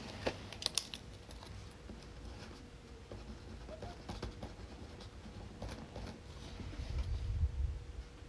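Pen writing on an index card: faint scratching, with a few small clicks in the first second and some low bumps near the end.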